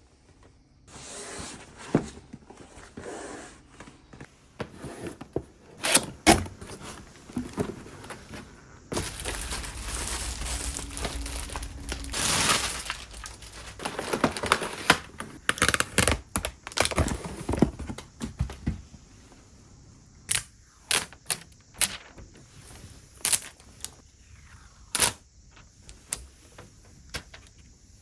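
Unboxing handling noise from a Korg Kaoss Replay's cardboard box and packaging: rustling, sliding and crinkling, with scattered thumps. In the last third it turns into a run of separate sharp clicks and taps.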